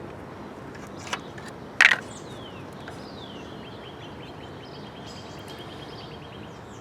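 A faint click and then a sharp, loud click, followed by birds calling: two short falling chirps and a fast trill, over steady background noise.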